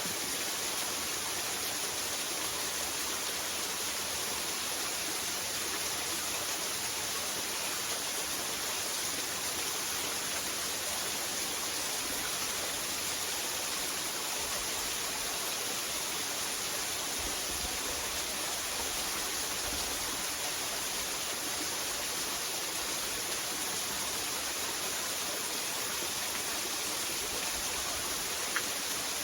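Waterfall: a steady rush of falling water, with one small click near the end.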